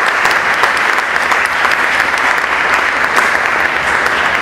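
Audience applauding: many hands clapping in a dense, steady stream at the close of a lecture.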